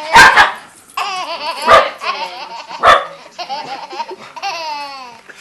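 A dog barking three times, loud and sharp, over a second apart, while a baby laughs and squeals in high, falling cries between the barks.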